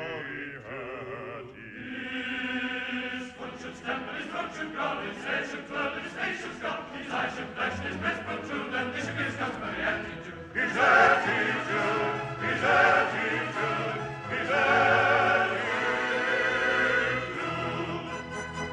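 Background music: operatic choral singing, long notes held with a strong vibrato, swelling louder about ten seconds in.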